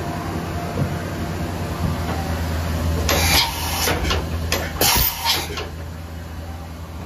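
Mazak VCC-5X 20K's automatic tool changer swapping a tool in the spindle: under a steady machine hum, two short bursts of hiss with clunks come about three and five seconds in as the tool is released and the changer arm swings.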